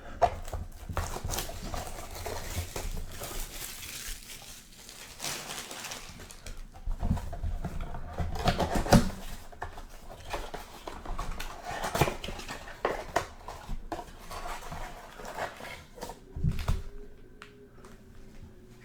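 A sealed blaster box of trading cards being opened by hand and its packs pulled out: irregular rustling, crinkling and soft knocks of cardboard and wrapper.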